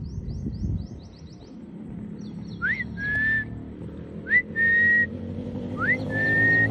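A person whistling three times to call a dog, each whistle a quick upward slide into a short held note. A motorcycle engine runs low underneath, and a bird chirps briefly near the start.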